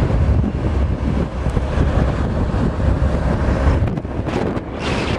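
Wind buffeting the microphone, a loud irregular low rumble with a rushing hiss above it, easing a little about four seconds in.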